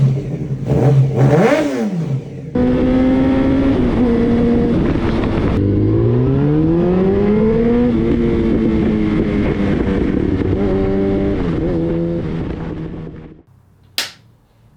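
Yamaha FZ1-N motorcycle's inline-four engine through its exhaust: first revved in quick blips, then running steadily with the pitch rising once as the revs climb and settling again. The engine sound cuts off suddenly near the end, followed by a single sharp snap.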